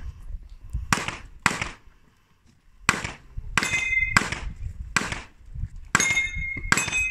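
About eight shots from a Glock 17 pistol, fired in quick pairs and singles, with three of them followed by the ringing of steel targets being hit.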